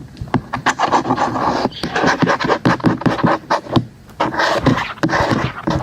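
Rapid fingertip tapping and scratching on a device held close to the microphone, as ASMR: quick sharp taps over a scratchy rustle, with two brief pauses.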